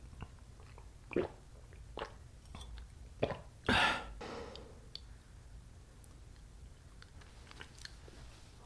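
A person drinking juice from a glass: a few soft swallowing and mouth clicks, then one loud, short sound about four seconds in as the glass is lowered from the mouth. After that only faint mouth sounds.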